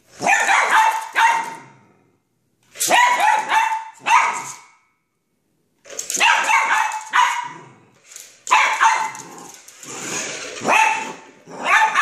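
Poodle barking repeatedly at a toy remote-control car, in quick bunches of several barks with short pauses between.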